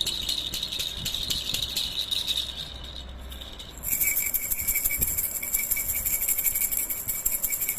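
Baby rattle toys shaken rapidly: a fast, even rattling that dies away about three seconds in, then from about four seconds a louder, brighter rattle with a steady jingling ring.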